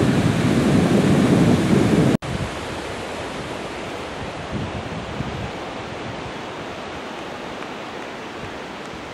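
Ocean surf washing onto a sandy beach, with wind buffeting the microphone. About two seconds in the sound cuts off abruptly and gives way to a quieter, steady wash of surf.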